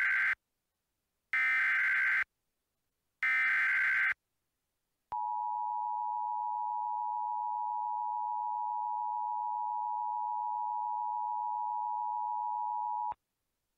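Emergency Alert System header: three short bursts of screechy digital data tones about a second apart. Then the two-tone attention signal (853 and 960 Hz) is held steady for about eight seconds and cuts off with a click. This sequence opens a new emergency alert.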